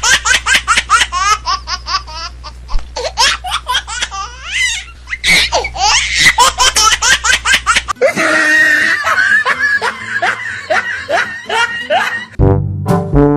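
Laughter in quick repeated bursts. About eight seconds in, it cuts to a different stretch of laughter, and loud brass music starts near the end.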